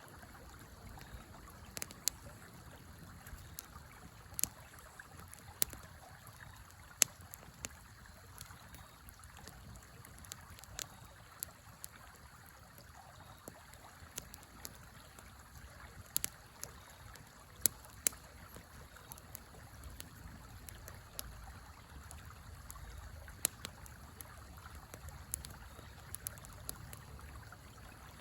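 Wood fire in a fire pit crackling, with sharp irregular pops and snaps every second or so, over the steady rush of a flowing river. A low rumble builds up in the second half.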